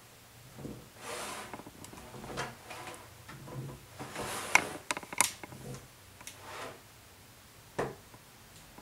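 Metal putty knife scraping in short strokes across wet acrylic gesso on foam board, working it into a textured finish, with a few sharp clicks and taps of the blade.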